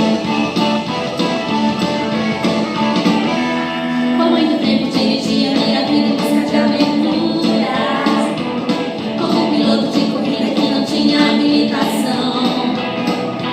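Christian children's worship song playing: singing over guitar accompaniment.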